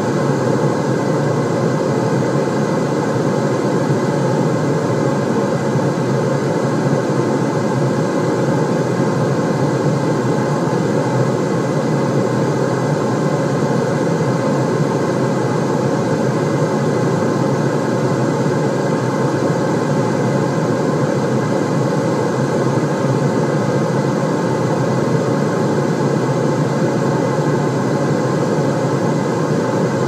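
A steady, loud white-noise track: one continuous, even rush, heaviest in the low and lower-middle range.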